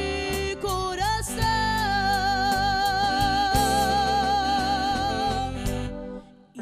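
Live band ballad: a woman sings, holding one long note with vibrato, over electric guitar, keyboard, bass and drums. The music falls away to a brief near-silent pause just before the end.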